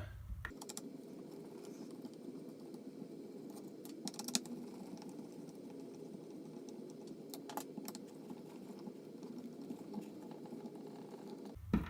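Faint clicks and taps of a screwdriver and hands working on the plastic housing of a DeWalt sander, a few sharp ticks over a steady low hiss.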